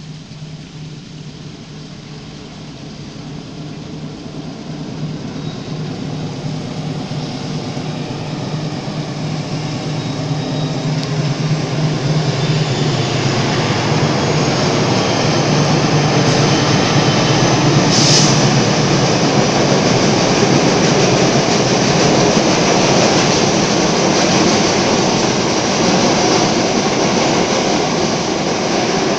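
Ciremai Express passenger train, hauled by a diesel-electric locomotive, approaching and crossing a high steel trestle railway bridge. A steady engine hum and the rolling rumble of the wheels grow louder over the first half, then stay loud as the carriages run over the steel span. There is a brief high squeal about eighteen seconds in.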